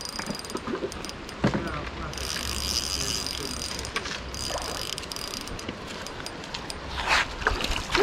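Fishing reel clicking as a hooked trout is reeled in, a fast run of fine ratcheting clicks about two seconds in that lasts about two seconds.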